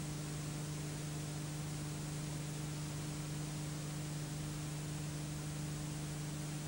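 Steady hiss with a constant low electrical hum and nothing else: the noise floor of an old silent home movie's transfer.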